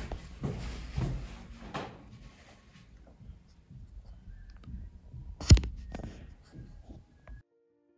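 Household room noise: soft knocks and handling rustles over a low rumble, with one sharp knock about five and a half seconds in. The sound cuts off suddenly shortly before the end.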